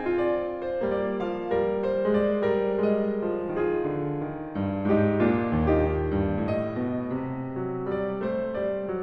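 Instrumental Christmas music on solo piano: a gentle melody over sustained chords, with deeper bass notes coming in about halfway through.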